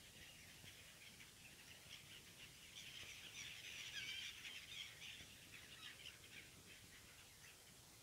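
Faint, many-voiced calling of a flock of black-headed gulls, short overlapping cries that grow busiest and loudest a few seconds in, then thin out.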